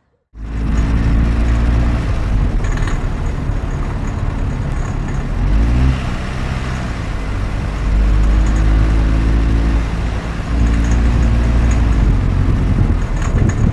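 Turbocharged petrol car engine running under load at low revs, with the metallic rattle of detonation (engine knock, called a 'spoon-and-fork' sound) over the engine note. The engine pitch shifts around the middle, then steadies.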